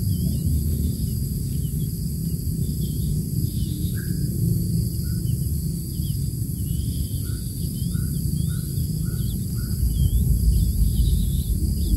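Outdoor ambience: a steady high insect drone with scattered small chirps over a low rumble, and from about four seconds in a run of short soft notes that come quicker toward the end.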